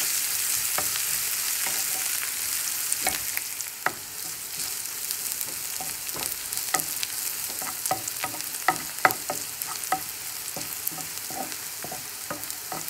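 Sliced onions and garlic sizzling in hot oil in a frying pan as they are browned for a tempering, stirred with a wooden spatula that clicks and scrapes against the pan. The sizzle is loudest for the first few seconds and eases a little after about four seconds.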